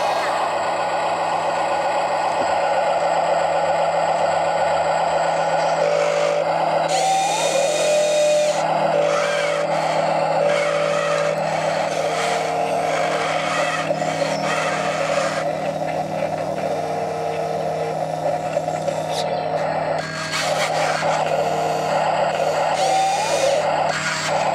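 Electric motors of a Huina radio-controlled wheel loader whining as it drives into a soil pile and raises its loaded bucket. The whine steps up and down in pitch as the drive and arm motors start and stop, over a steady low hum.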